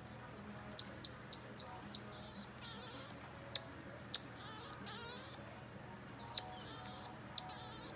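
Pet marmoset monkeys making a string of very high-pitched chirps and whistled calls, mixed with short sharp clicks, repeated throughout.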